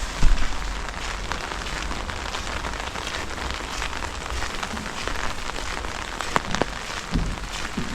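Steady rain falling, with many small drops pattering close by and a few louder taps.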